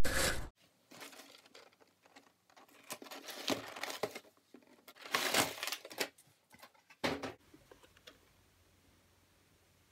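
Hands handling a cardboard drone box and its packaging: irregular rustling and scraping in several bursts, dying away after about eight seconds. A loud steady noise cuts off abruptly about half a second in.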